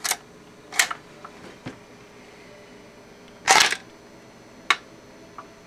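Record changer of a KLH Model 20 record player cycling after its control lever is set, its mechanism freshly cleaned and lubricated: a click at the start, clicks and clunks as the tone arm lifts and swings over to the record, the loudest a short clatter about three and a half seconds in.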